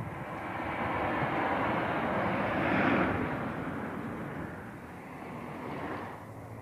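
A vehicle passing: a noisy rush that builds to its loudest about three seconds in, then fades away.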